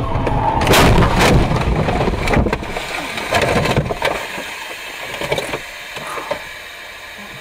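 Car crash heard from inside the car: two heavy impacts less than a second apart about a second in, then further bangs and rattling that die down after about four seconds.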